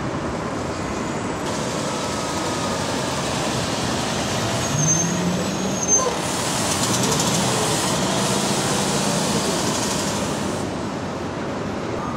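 City street traffic, with a heavy vehicle's engine note rising as it pulls away about five seconds in, a brief high brake squeal, a sharp knock, then several seconds of loud hiss.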